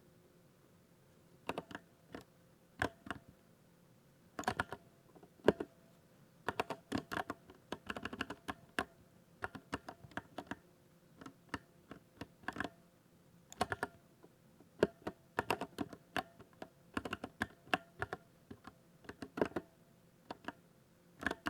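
Typing on a 60% mechanical keyboard: sharp key clicks in uneven bursts and short runs, starting about a second and a half in.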